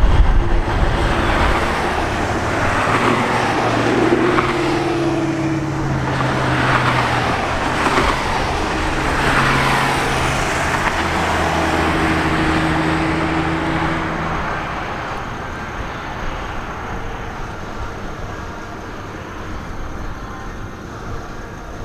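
Car engines and road traffic, with steady engine notes and several passing sweeps; the engine notes fade out about fourteen seconds in, leaving quieter traffic noise.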